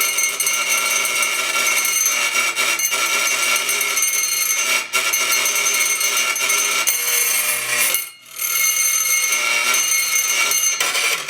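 Homemade electric doorbell run on 24-volt AC: the wire-wound electromagnet buzzes its spring-metal striker against the bell, giving a continuous rapid ringing, like an alarm bell. It breaks off twice briefly, about five and eight seconds in, and stops at the end. It works, roughly: it makes noise.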